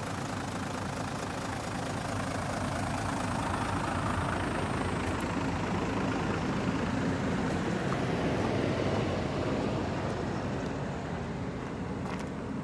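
Mitsubishi Fuso Aero Midi bus's 6D17 inline-six diesel engine idling steadily.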